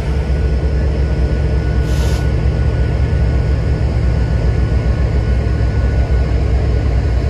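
Freight train rumbling steadily, with a short burst of hiss about two seconds in.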